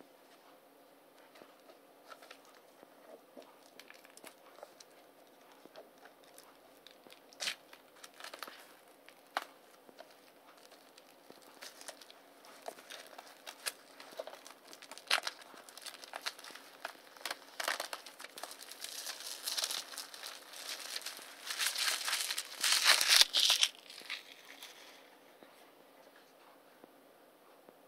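Thin plastic shrink-wrap being torn and peeled off a DVD case by hand: scattered crackles at first that build into dense crinkling, loudest about three quarters of the way through, then stop.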